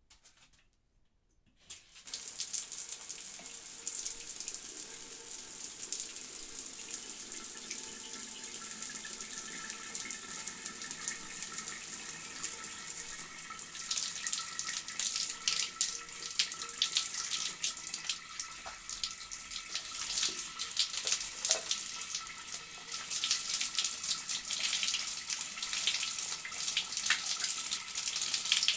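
Shower turned on about two seconds in, then water spraying steadily. From about halfway the spray splatters more unevenly, as someone showers under it.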